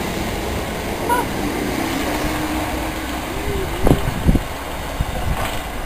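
A Southern Class 377 electric multiple unit pulls out of the platform, its running noise easing slightly as it draws away. Two sharp thumps come close together about four seconds in.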